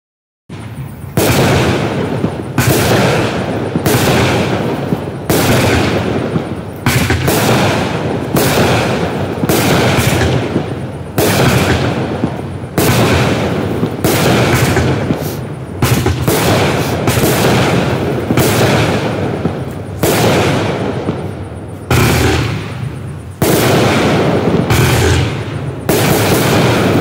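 Black Cat 'Absolute Destruction' 500-gram, 49-shot multi-effect cake firing. Sharp launch and burst reports come shot after shot, about one a second, each ringing off before the next, starting about half a second in after silence.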